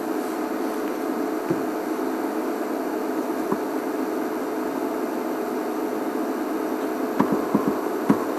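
A steady hum and hiss, with a few soft ticks near the end.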